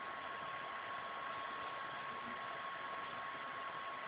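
Steady background hiss with a thin, constant high whine running under it: the room and recording noise floor, with no distinct event.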